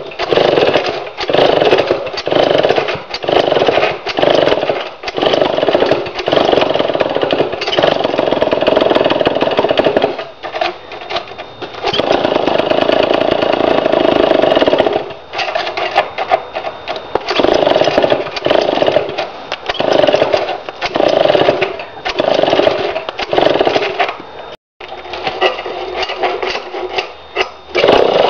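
Pioneer IEL HC 87cc two-stroke chainsaw being pull-started over and over after refuelling: repeated loud cranking strokes about a second apart, with two longer unbroken stretches of sound about a third of the way in and around the middle.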